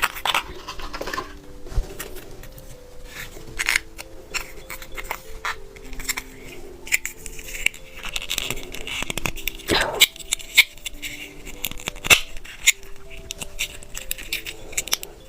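Soft background music with a simple stepping melody. Over it come many sharp clicks and crackles close to the microphone, from candy being handled and eaten.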